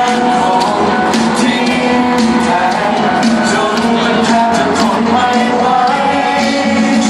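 A live pop song: singing over a full band with a regular drum beat.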